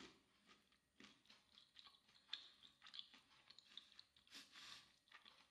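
Faint chewing of a chocolate-hazelnut praline with the mouth closed: small, irregular clicks and ticks from the jaw and the nut filling.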